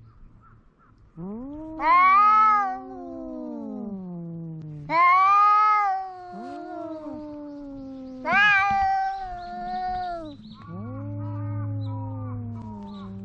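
Cat meowing loudly over and over: four long, drawn-out calls, each rising then sliding down in pitch and trailing off. The last call is quieter than the three before it.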